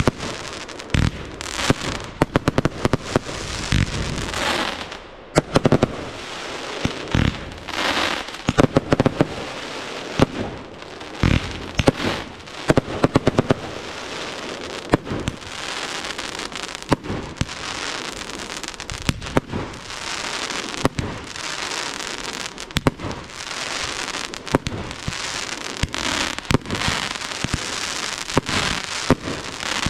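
Professional fireworks display: aerial shells and comets going off in rapid, irregular succession, many sharp bangs over a continuous fizzing hiss.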